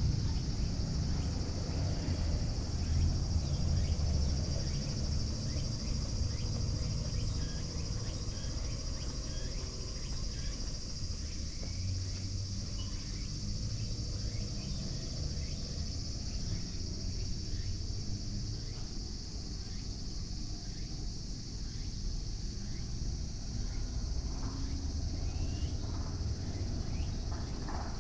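Steady, high-pitched chorus of insects such as crickets, with a low rumble underneath.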